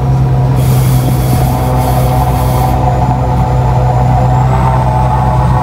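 Renault Premium 370 truck's diesel engine running steadily under way, heard from inside the cab. A hiss sits over it for about two seconds near the start.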